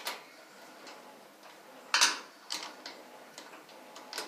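Light metal clicks from a screwdriver working the power-cord screws on an electric dryer's terminal block, with one sharper click about two seconds in.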